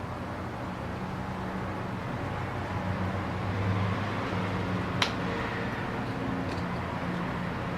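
A steady low mechanical hum, with one sharp click about five seconds in.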